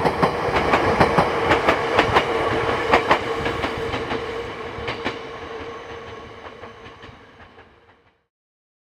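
Ueda Electric Railway Bessho Line electric train running past and away. Its wheels clack over the rail joints, loudest in the first few seconds, over a steady hum, and the sound fades as the train recedes until it cuts off about eight seconds in.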